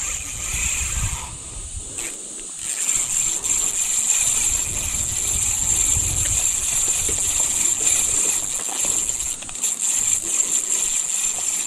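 Ultralight spinning reel's drag giving a steady high buzz as a hooked milkfish runs and pulls line off against the bent rod.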